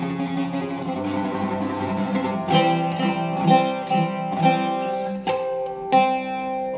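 Oud with a cedar soundboard played solo with a plectrum. Rapidly repeated picking on held notes for about the first two and a half seconds gives way to a run of separate, sharply plucked notes.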